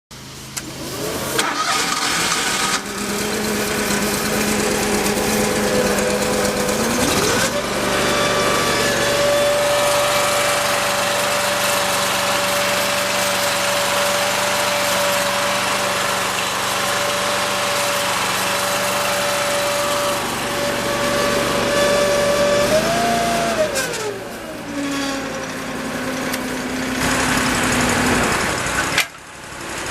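Toro Dingo TX427 mini skid steer's engine started and idling, then throttled up with a rising pitch at about seven seconds and held at a steady higher speed. About twenty-four seconds in, it is throttled back down to idle.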